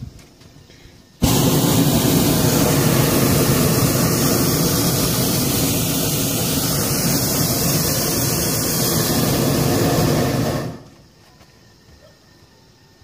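Hot air balloon's propane burner firing in one long blast of about nine seconds, starting suddenly about a second in and cutting off near the end.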